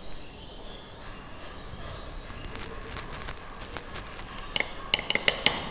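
Faint room noise, then, near the end, a quick run of light clinks as glass lab measuring cylinders knock against each other and the bench.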